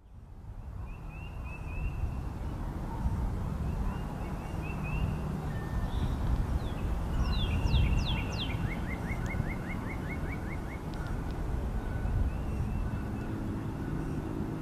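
Outdoor ambience fading in: several small birds chirping and trilling, with a rapid run of falling notes about two-thirds of the way in, over a steady low rumble.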